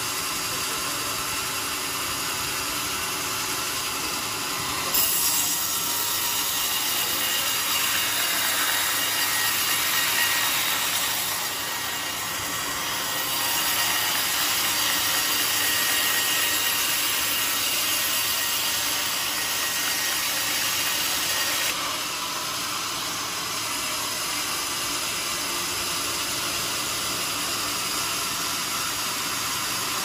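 Large band sawmill cutting lengthwise through a jackfruit log, a steady hissing whine of blade through wood. Suddenly louder and brighter from about five seconds in for some seventeen seconds, then back to a lower steady running sound.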